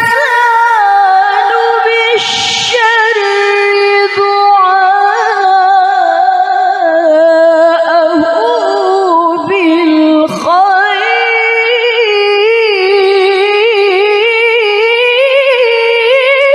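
A woman's voice reciting the Quran in the melodic tilawah style, amplified through a handheld microphone: long, high-pitched, ornamented held notes with wavering pitch, a short break about two seconds in and a deep swoop in pitch about ten seconds in.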